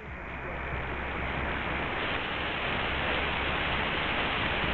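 Static hiss from a web-based software-defined radio receiving AM on 1680 kHz in the medium-wave band, with no clear station audio above the noise. About two seconds in the hiss turns brighter and reaches higher as the receive bandwidth is widened.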